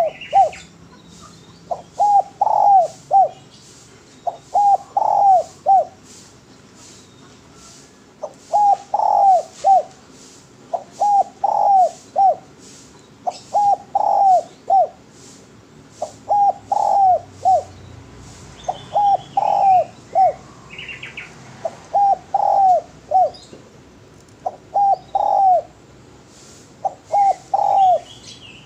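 Spotted dove (derkuku/tekukur) cooing: a short phrase of three or four notes, the last one falling, repeated about every two to three seconds. Faint higher chirps from another bird come in about two-thirds of the way through.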